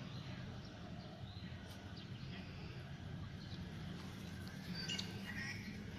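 Faint birds chirping over a steady low background rumble, with a brief cluster of chirps about five seconds in.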